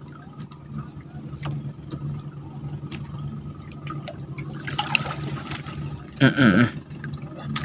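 Water trickling and splashing over a steady low hum, with a short, loud call from a man's voice about six seconds in.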